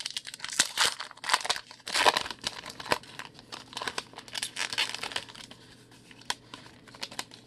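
Foil wrapper of a 2020 Donruss baseball card pack crinkling and tearing as it is pulled open, loudest about two seconds in, thinning to a few light rustles near the end.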